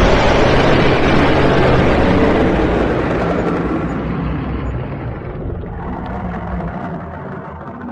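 Dragon sound effect: a loud rushing noise with a low steady tone beneath it, strongest at the start and fading gradually over about eight seconds.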